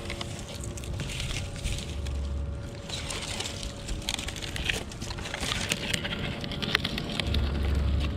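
Dry dead vines being pulled and snapped apart by hand, crackling and rustling as they drag over asphalt shingles. Two gusts of wind rumble on the microphone, about two seconds in and near the end.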